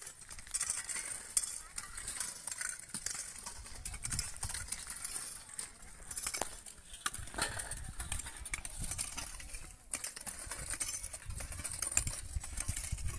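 Many short-handled hand hoes scraping and chopping into dry, hard soil, with scattered small clinks and scrapes over a low, uneven rumble.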